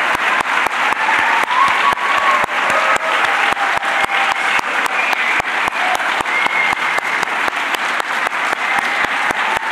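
Audience applauding steadily in an auditorium, with a few voices faintly audible over the clapping.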